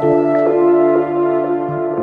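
Background music: soft ambient keyboard chords held and changing every second or so.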